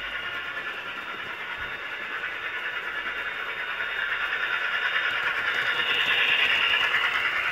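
Model train running along the layout's track, the whirr of its motor and wheels growing louder as it approaches and passes close, loudest about six seconds in.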